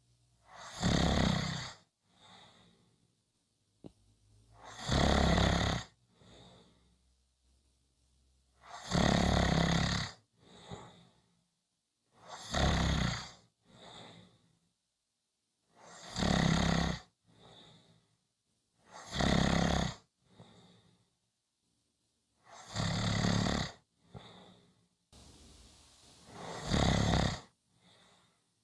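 Someone snoring steadily: eight loud snores, one about every three and a half to four seconds, each followed by a fainter breath.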